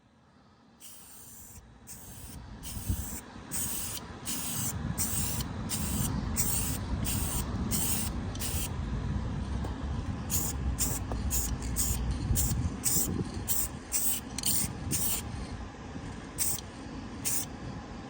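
Aerosol can of 1K clear coat spraying onto a sanded plastic headlight lens in many short bursts, about two a second, pausing briefly around nine seconds in and ending with two last bursts near the end, over a steady low rumble.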